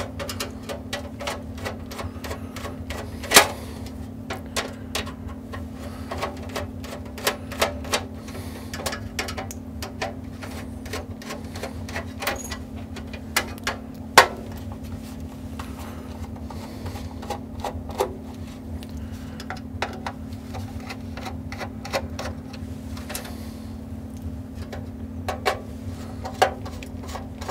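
Irregular clicks and knocks of hand tools and metal parts being handled while a Heathkit SB-220 amplifier is taken apart, with two louder knocks, about three and fourteen seconds in, over a steady low hum.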